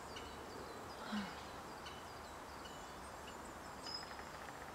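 Quiet woodland ambience: a steady low hiss with faint, scattered bird chirps and tweets. A brief soft, low sound comes about a second in.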